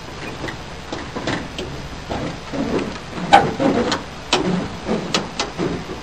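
Steel cab door of an old pickup truck being worked by hand: a run of sharp metal clanks, knocks and rattles, the loudest about three and a half seconds in.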